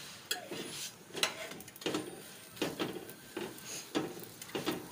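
Stainless-steel tongs and a spatula knocking and scraping against a nonstick tawa as a paratha is pressed and shifted on it: a series of short knocks and scrapes, roughly one every half second to second.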